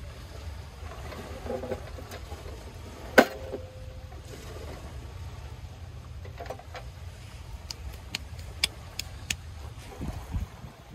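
Handling of a bamboo cutting board and gear on a steel Stanley lunch box. A sharp clink about three seconds in rings briefly. Later comes a quick run of light clicks, then a couple of soft knocks near the end, all over a low steady rumble.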